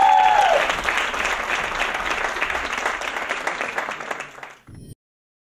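Audience applauding, with one voice giving a long, high cheer at the start. The applause thins out and stops abruptly near the end.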